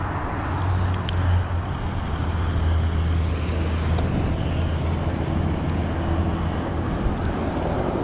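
Wind rushing over the microphone of a moving bike along a road, with a steady low engine hum from road traffic for most of the stretch that fades out near the end.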